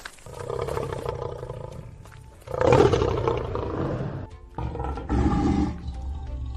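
Lion roaring three times, the loudest starting about two and a half seconds in, over background music.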